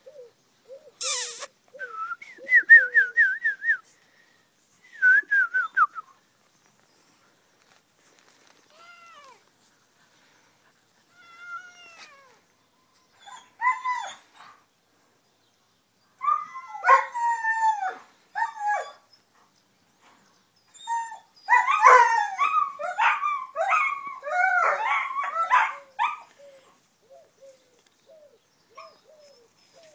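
Alaskan Malamute puppy whining and yowling in bouts of high, wavering cries, the longest and loudest bout near the end. A dove coos at the start and again at the end, and there is a sharp click about a second in.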